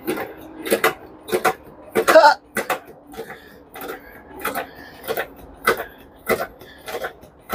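Hydraulic jack being pumped by hand, a short stroke sound about every 0.6 s as it lifts a heavy log carving.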